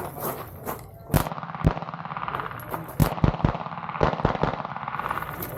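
A string of handgun shots, about eight sharp reports, several fired in quick pairs and triples, as a shooter engages targets on a pistol stage.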